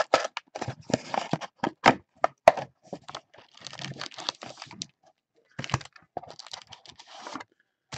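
Cardboard trading-card hobby box being opened and its wrapped card packs pulled out and stacked: a quick string of sharp clicks and cracks, then bursts of rustling and crinkling.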